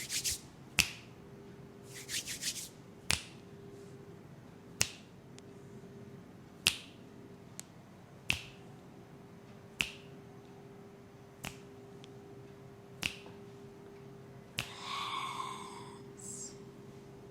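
Finger snapping as an ASMR trigger: single sharp snaps every second or two, with a quick run of three about two seconds in. A brief rustle comes near the end.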